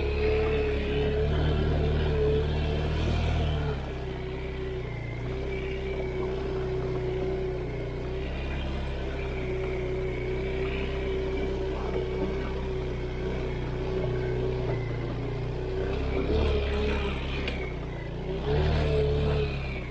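All-wheel-drive off-road motorcycle engine running under way with a steady whine over it, picking up for a few seconds at the start and again near the end.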